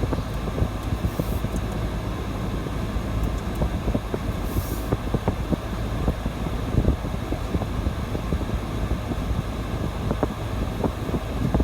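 Four-wheel drive's engine and cabin noise from inside the vehicle: a steady low rumble with small knocks and rattles scattered through it.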